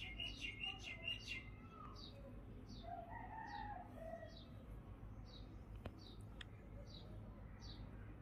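Birds calling outdoors: a small bird repeats a short, high, falling chirp about every three-quarters of a second, with a burst of busier chirping in the first second or so. A distant rooster crows about three seconds in.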